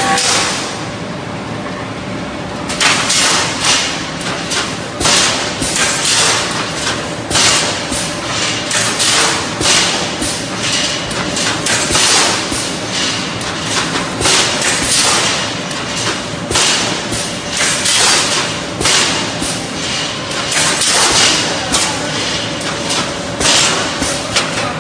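Automatic wire mesh panel welding machine running its welding cycle: a steady hum under repeating noisy bursts about once a second, starting about three seconds in, as the machine clamps and welds each cross wire.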